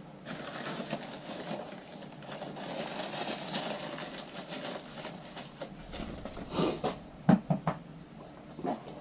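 Workbench handling noises while a golf iron head is fitted and glued onto its shaft: several seconds of rubbing and scraping, then a handful of sharp knocks in the last few seconds.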